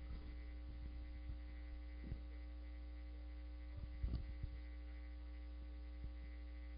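Steady electrical mains hum with a ladder of faint higher tones above it, and two faint knocks about two and four seconds in.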